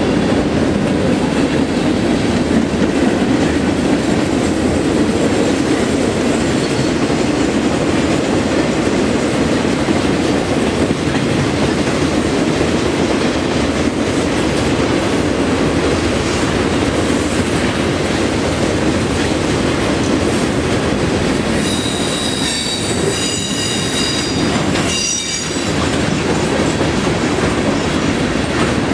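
Freight cars of a Union Pacific manifest train rolling steadily past with a continuous rumble and clatter of wheels over the rails. About three-quarters of the way through, the wheels give a few seconds of high, thin squeal.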